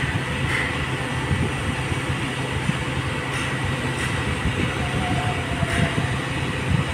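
XCMG truck crane's engine running steadily while the crane holds a duct section aloft, a low rumble with a thin steady high whine over it.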